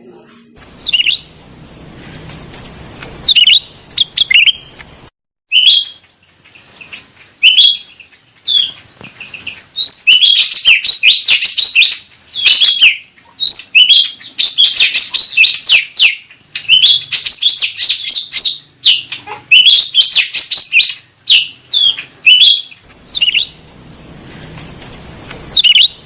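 Cucak rante bird calling: short, high, chirping notes, a few at a time at first, then fast chattering runs through the middle, thinning out again near the end.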